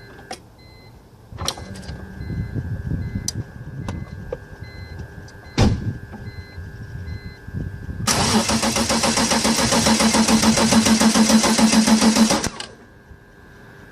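A 2005 BMW 325Ci is switched to ignition position 2, bringing clicks, a low whir and one loud click. About eight seconds in, the starter cranks the inline-six for about four seconds without it catching, then stops abruptly: a no-start.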